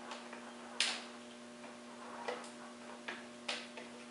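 Small screws being started by hand into a garage door opener's logic board mount, giving about four small clicks and ticks, the sharpest about a second in, over a steady low hum.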